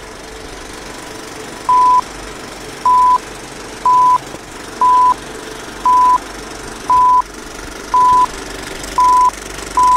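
Old-film countdown leader sound effect: a short, loud, high beep of one steady pitch about once a second, nine times, over a steady background of hiss and hum.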